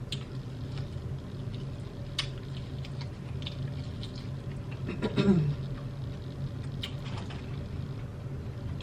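Close-miked chewing and wet mouth sounds of someone eating, with scattered small clicks and smacks and a short voiced "mm" about five seconds in.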